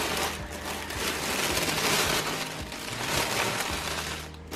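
Gold metallic tissue paper crinkling and rustling as hands pull it open inside a cardboard box, in a steady crackle that eases off near the end.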